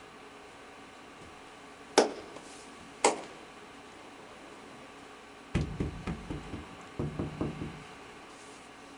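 Two sharp knocks about a second apart, then two quick runs of dull, deep thumps.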